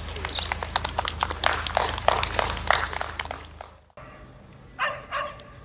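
Scattered applause from a small audience, fading out after about three and a half seconds, then two short, sharp sounds close together near the end.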